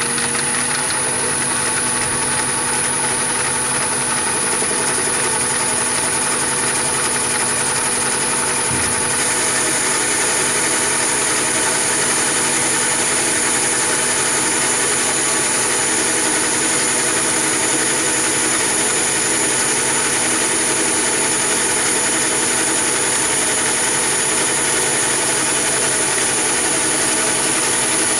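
Chinese mini lathe running with a high-pitched steady whine, finishing its spin-up in the first second, as an insert tool takes a power-fed turning cut along a 16 mm bar of 316 stainless steel.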